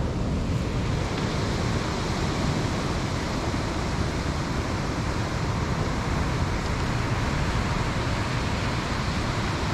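Wind buffeting the microphone in a steady low rumble, over the even rush of surf breaking on the beach.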